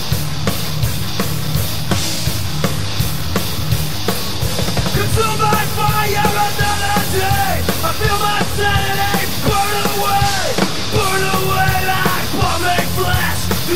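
Thrash metal song played by a three-piece band of distorted electric guitar, bass and drum kit. About five seconds in, a line of long held notes that bend down at their ends comes in over the band.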